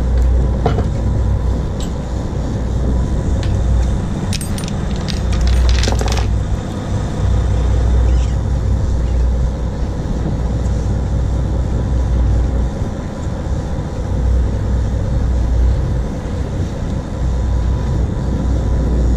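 Steady low rumble of a sportfishing boat's engine mixed with wind on the microphone. A quick run of sharp metallic clicks and clinks comes about four to six seconds in.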